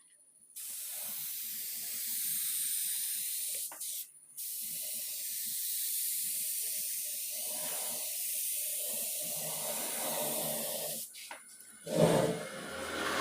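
Compressed-air paint spray gun spraying with a steady hiss, pausing briefly about four seconds in and stopping about eleven seconds in. A louder, lower sound follows near the end.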